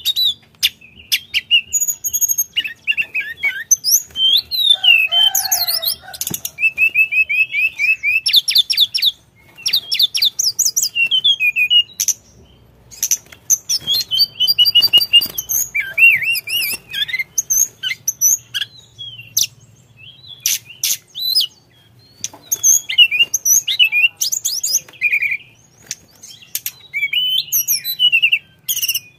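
Male hill blue flycatcher (tledekan gunung) in full song: rapid, varied high twitters, trills and whistled phrases, in bursts separated by short pauses.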